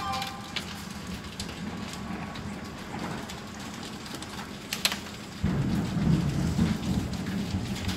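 Steady rain from an intense thunderstorm. About five and a half seconds in, a low rumble of thunder comes in suddenly and rolls on, louder than the rain.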